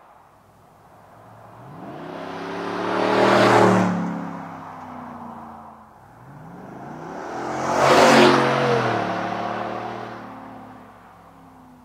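A GM Silverado/Sierra 1500's 6.2L V8 with a Flowmaster FlowFX cat-back exhaust and straight-through muffler drives past twice. Each time the exhaust note swells as the truck approaches, peaks as it passes, then drops in pitch and fades away.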